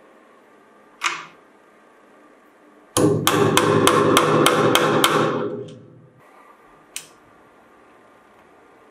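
A hammer tapping a steel nail into a wooden board: about ten quick strikes, roughly four a second, that tail off. A single sharp click comes about a second in and another near the end.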